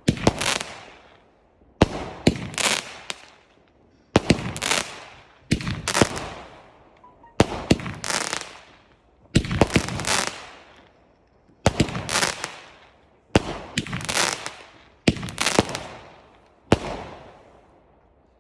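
Fireworks going off in a steady series of about ten bursts, one every one and a half to two seconds. Each burst is a sharp bang or two followed by a fading crackle.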